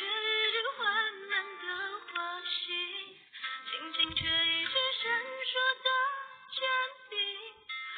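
A woman singing a slow song over backing music, the sound thin and muffled as it comes through a phone livestream. There is a deep thump about four seconds in.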